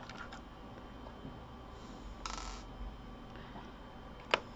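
Quiet handling of a laptop's plastic parts: a brief scrape a little past halfway and one sharp click near the end, as the optical drive is worked at by hand without forcing it.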